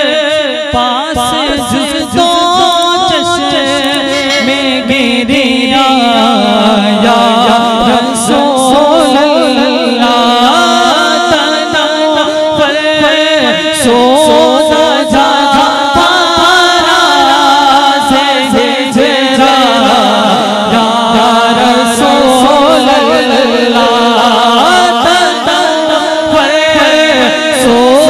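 A man singing a naat, an Islamic devotional poem, into a microphone and heard through amplification, in long, gliding, ornamented melodic lines.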